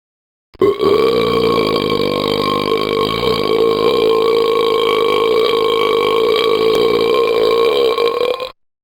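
A single very long, loud burp, starting about half a second in, held steady for about eight seconds and cut off abruptly near the end.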